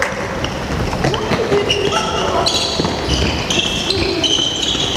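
Handball players' shoes squeaking on the sports-hall floor, with many short high squeaks in the second half, over the thuds of the ball bouncing. Voices carry in the background.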